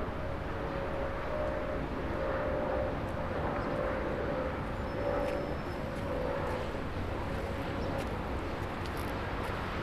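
Airplane flying overhead: a steady droning hum that wavers slightly in pitch, over a constant low rumble.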